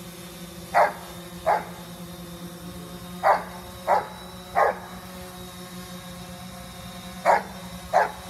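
Giant Schnauzer barking at a hovering quadcopter drone: seven sharp barks in groups of two, three and two. The steady hum of the drone's propellers runs underneath.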